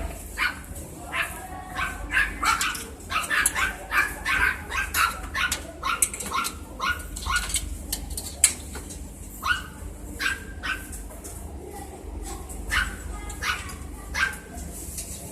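A cat meowing over and over in short cries, several a second at first and more spaced out in the second half.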